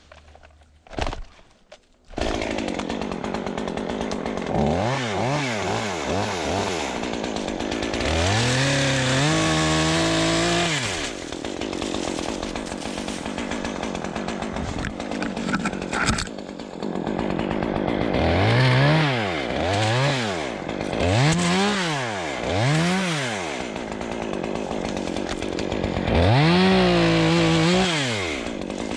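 Stihl chainsaw started about two seconds in, then running, revved up and down several times and twice held at full throttle for a few seconds, as when bucking a downed tree.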